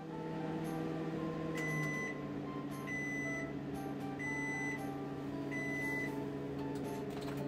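Sharp Healsio oven running with a steady motor hum, beeping four times about a second and a half apart, the signal that its baking cycle has finished.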